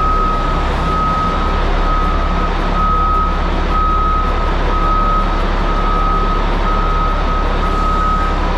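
Caterpillar 627G scraper running, with its reversing alarm beeping steadily about once a second over the diesel engine noise.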